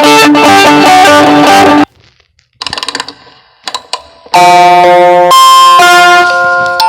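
LG Aristo phone ringtones previewed one after another: a short loud tune that cuts off abruptly after about two seconds, a few faint clicks, then a second ringtone melody of held notes that starts a little after four seconds in.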